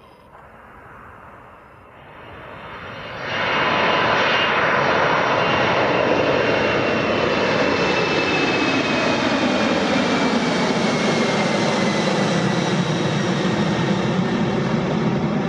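Boeing 747-400F freighter's four jet engines at take-off power as it lifts off and climbs away. Faint at first, the loud engine noise arrives suddenly about three and a half seconds in and holds steady, with a whining tone that slowly falls in pitch.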